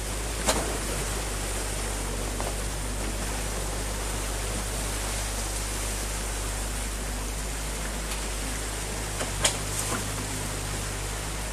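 Muddy water rushing and splashing through a breached beaver dam, a steady rush, with an excavator's engine humming underneath. Two sharp knocks stand out, one about half a second in and one near the end.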